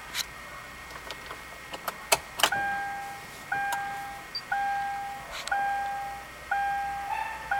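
A few sharp clicks, then from about two and a half seconds in a car's warning chime: one steady ding repeating about once a second, each fading away before the next.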